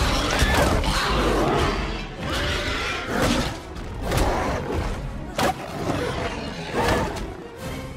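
Monster-fight film soundtrack: dramatic score under a series of heavy thuds and crashes of blows, with a giant gorilla and a dinosaur roaring. The sharpest hits come about five and a half and seven seconds in.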